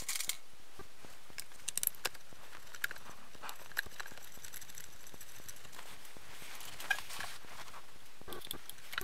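Sped-up workshop sound of bolts being fitted into a cast transmission case: scattered small metal clicks and taps over a steady hiss.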